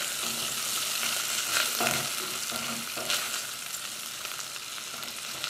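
Bacon and sliced linguiça sausage sizzling as they fry in a stainless steel pot, stirred with a silicone spatula that scrapes the pot a few times.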